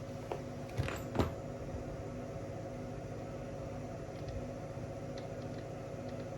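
Steady electrical-sounding hum with a few light clicks and knocks in the first second or so, the last one the loudest, as small parts are handled while threadlocker goes on the scooter's stem screw.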